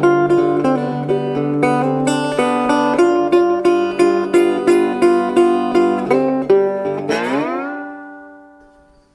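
Background music: the instrumental ending of a blues-rock song, with guitar notes picked about twice a second. About seven seconds in, a chord slides upward, rings, and fades out.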